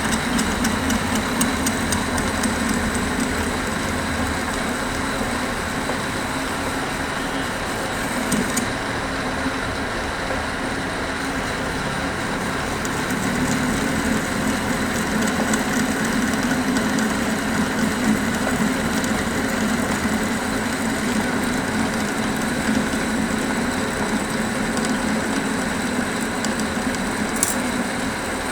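Metal-working lathe running steadily: a constant low machine hum with a thin, steady high tone over it.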